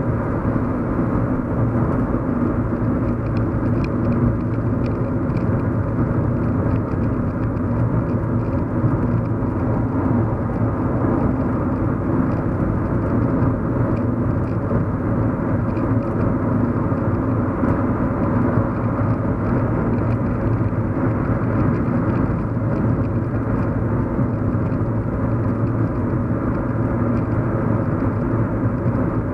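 Steady hum of a moving car heard from inside the cabin: engine and road noise, deep and even, with no changes in speed.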